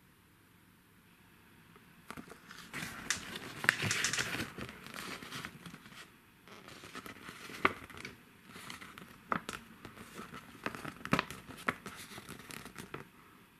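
Folded paper leaflet being unfolded and handled, crinkling with sharp crackles and snaps, starting about two seconds in and stopping shortly before the end.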